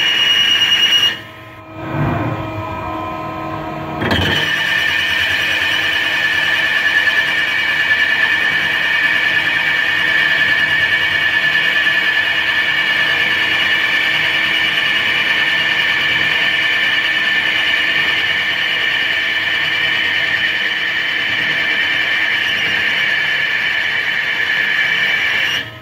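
Lathe turning tool squealing steadily as it cuts the end journal of a spinning crankshaft on a Mazak CNC lathe. The steady high squeal stops briefly in the first two seconds, starts again abruptly about four seconds in, and runs on until just before the end.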